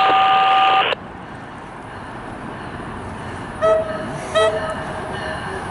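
MARC commuter train horn: one loud two-tone blast lasting about a second at the start, then two short toots about three and a half and four and a half seconds in, over the steady rumble of the approaching train.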